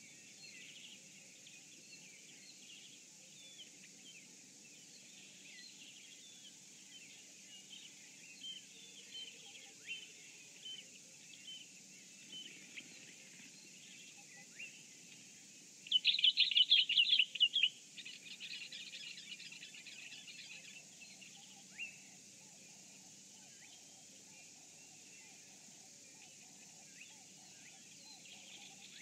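Early-morning birds in riverside bush chirping and calling in short scattered notes, with one loud, fast rattling call about halfway through, followed by a softer rapid chatter for a few seconds.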